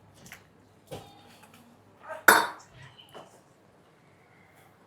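Tableware clinking during a meal: a few light clicks of utensils against bowls, with one louder clink a little over two seconds in.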